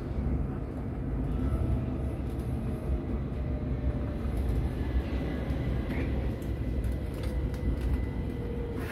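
Passenger train running, heard from inside the carriage: a steady low rumble of wheels on the track, with a faint steady whine in the second half.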